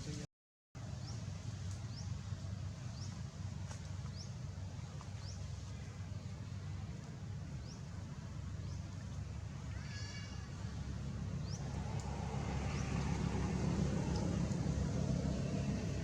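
Steady low vehicle rumble, growing louder near the end, with short high chirps scattered throughout and one brief rising squeal about ten seconds in.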